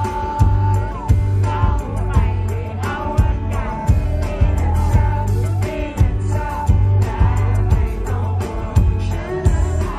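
A male singer singing live over a full backing band with a steady drum beat and heavy bass.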